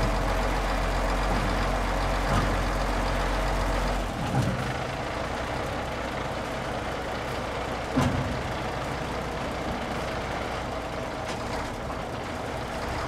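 Diesel truck engine running while its hook-lift hydraulics lower a loaded container flat onto the chassis; the deep drone drops about four seconds in, as the lowering ends. A few metallic clunks, the sharpest about eight seconds in.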